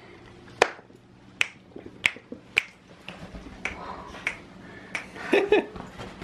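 A run of sharp clicks, about one or two a second, with a short pitched voice-like sound about five seconds in.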